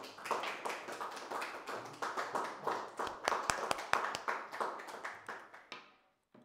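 Audience applauding: many dense, irregular hand claps that die away and are cut off near the end.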